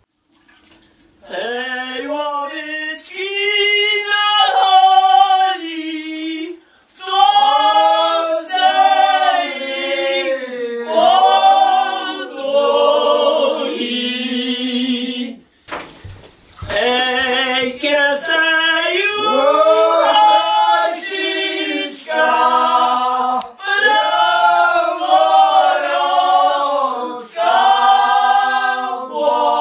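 Unaccompanied singing by several voices in harmony, long held notes in phrases with brief breaks between them.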